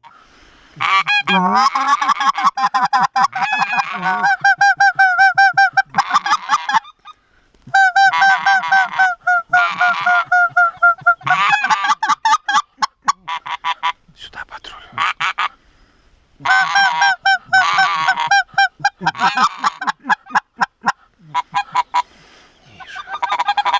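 Hand-blown goose calls, one imitating a white-fronted goose and one a bean goose, worked together in runs of rapid honks and clucks, broken by short pauses about a third and two thirds of the way through.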